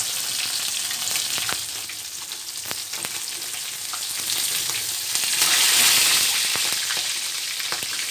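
Yellowfin tuna pieces sizzling in hot oil in a wok, with light clicks of metal tongs on the pan as the pieces are turned. The sizzle swells louder about five seconds in.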